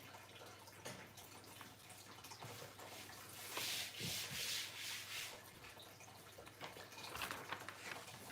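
Faint rubbing and scraping with scattered light knocks as a folding desk on casters is handled, with a louder scraping rub from about three and a half to five seconds in.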